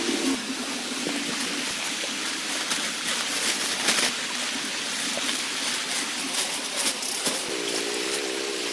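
Steady rain falling, an even hiss with scattered louder drops striking close by. A short wavering tone joins in near the end.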